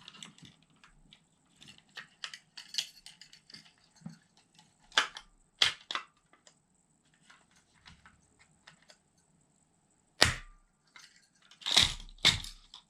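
Scattered clicks and several sharp snaps of a plastic spring-loaded airsoft impact grenade being handled, as its BB compartments are released and spring open.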